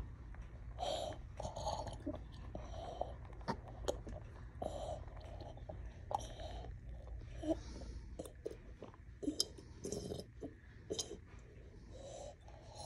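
A toddler drinking from a small mug, making a run of gulps, swallows and breathy mouth sounds about once a second.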